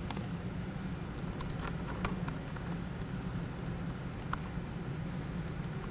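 Laptop keyboard being typed on: scattered, irregular key clicks, faint over a steady low room hum.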